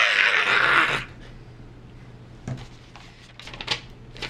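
A man's loud, hoarse villain cry, the end of a maniacal evil-genius outburst, cutting off about a second in. After it come a few faint clicks and rustles over a low steady hum.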